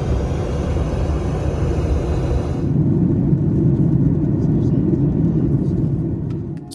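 Steady rumble and roar of a Boeing 737 MAX 8 jet airliner, its engines and airflow. About two and a half seconds in, the high hiss drops away, leaving a lower rumble that fades near the end.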